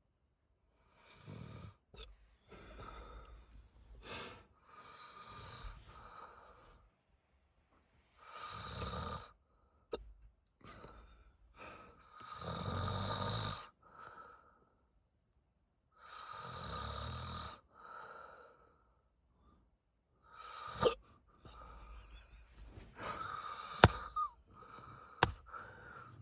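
A man snoring in a drunken, passed-out sleep, with uneven breaths between; the biggest snores come about every four seconds. Near the end a few short, sharp sounds break in.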